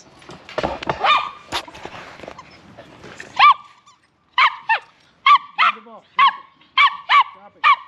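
Dog barking in a quick run of short, high-pitched yaps, about three a second, starting a little over three seconds in.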